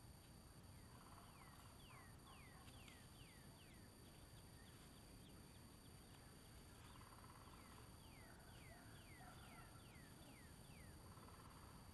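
Faint birdsong: two runs of quick, falling whistled notes, several in each run, one about a second in and one in the second half.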